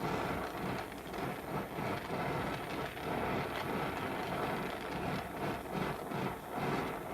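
Brazing torch flame hissing, with an uneven crackle, as brazing rod is melted onto a cracked steel tool part.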